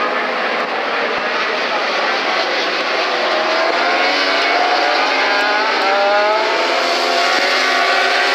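A pack of 1000cc four-cylinder superbikes racing through a corner. Several engine notes overlap, their revs rising together from about three seconds in as the bikes accelerate.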